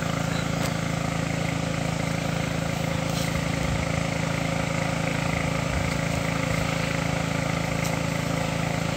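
A small engine running steadily at an even idle, a constant low hum that does not change.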